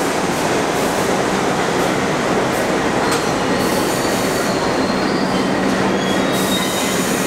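NYC Subway R62A cars of a 1 train moving through the station, a loud steady rumble of wheels on rail. Thin high wheel squeal comes and goes from about halfway through.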